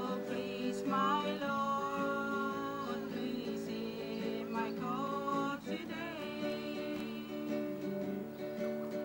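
Acoustic guitar strummed under voices singing long, held notes.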